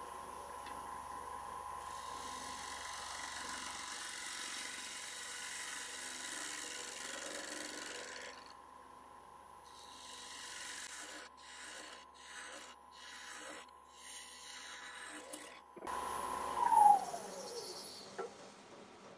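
Wood lathe turning a sycamore bowl blank: a gouge cutting the wood with a continuous hiss of shavings over the lathe motor's steady whine, then about eight seconds in a run of short separate cuts. Near the end the lathe is switched off and its whine falls in pitch as it winds down, with one louder burst as it slows.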